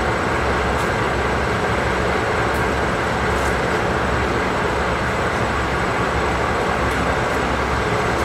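DD51 diesel-hydraulic locomotive's twin V12 diesel engines idling with a steady, loud rumble at the head of a container freight train.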